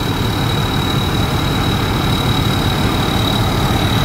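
Large diesel engine idling steadily, with a thin steady high-pitched whine above it.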